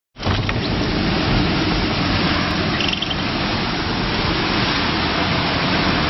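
Loud steady rush of storm wind and rain near a tornado, with uneven low buffeting, heard from a vehicle. It starts suddenly just after the title card.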